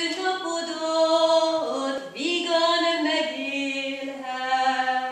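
A woman singing a Hungarian folk song solo and unaccompanied, in long held notes that step up and down, with a short breath about two seconds in.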